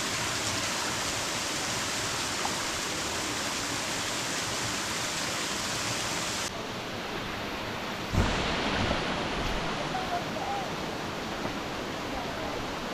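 Steady rush of a waterfall. About eight seconds in there is a low thump, and a few faint short chirps come near the end.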